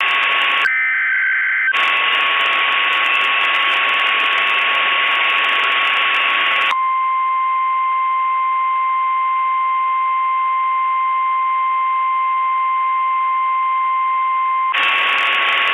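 Emergency alert broadcast audio in the style of NOAA Weather Radio. It opens with harsh radio static and a brief warble of stepped data tones. Then comes one steady, unbroken alarm tone (the weather radio warning alarm), heard clean for about eight seconds before hissing static returns under it near the end.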